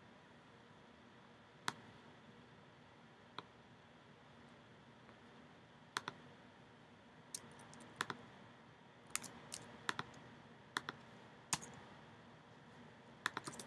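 Scattered sharp clicks of a computer mouse and keyboard, a few at first and then coming faster in the second half as the list is randomized over and over.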